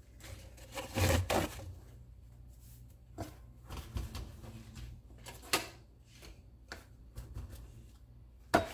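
Paper and plastic meat wrapping rustled and crinkled by hand as ribeye steaks are unwrapped, in a few separate bursts, the loudest about a second in, with a couple of sharp clicks and knocks later on.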